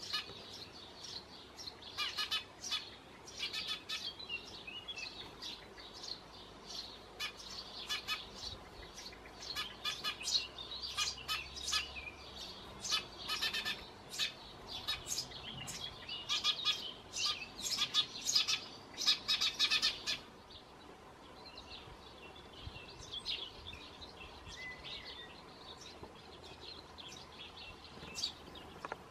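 Eurasian tree sparrow chick begging at the nest-box entrance: rapid, insistent high chirps in dense bursts while it is fed. The chirps stop abruptly about two-thirds of the way through, leaving only faint scattered chirps.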